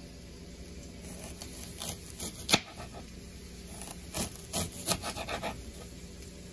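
Kitchen knife thin-slicing a red onion on a cutting board: a few cuts with one sharp knock on the board about two and a half seconds in, then a quicker run of cuts from about four to five and a half seconds in.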